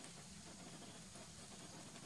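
Near silence: faint, steady background hiss with no distinct sound events.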